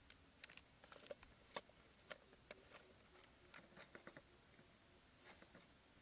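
Faint, scattered clicks and taps of a plastic drink bottle and its screw cap being handled: the cap is twisted off and the bottle set down upside down on a piece of cardboard. The clicks come thickest in the first four seconds, with a few more near the end.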